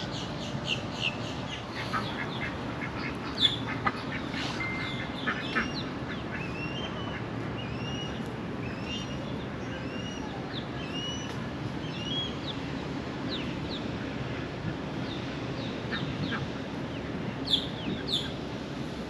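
Domestic ducks quacking on and off, calling in short repeated notes.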